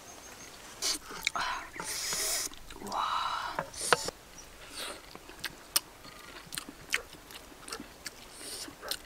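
Close-up mouth sounds of a person eating fish with her hands: lip smacks, chewing and many sharp clicks, with a few louder breathy sounds between one and four seconds in.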